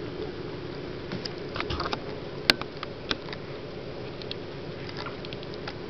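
A Weimaraner shuffling and pawing on a blanket: scattered soft clicks and rustles, with one sharp click about two and a half seconds in, over a steady low hum.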